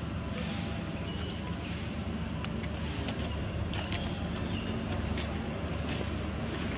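Steady outdoor background noise: a low rumble under a high hiss, with a few short, sharp clicks scattered through it.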